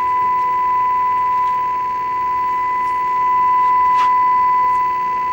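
Steady 1 kHz test tone: a single pure pitch held without a break, with a faint click about four seconds in.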